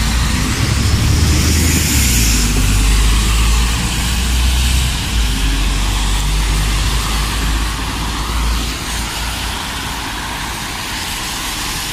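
Road traffic on a wet street: a London bus's diesel engine rumbling as it pulls past close by, under a steady hiss of tyres on the wet road. The rumble eases off about eight seconds in.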